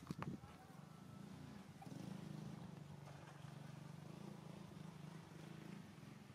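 Faint steady low hum of a motor engine, setting in about two seconds in, after two or three short sharp clicks at the very start.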